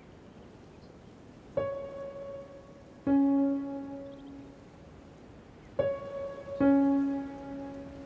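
Piano playing a descending octave twice: a note is struck and then the note an octave below it, each ringing and fading.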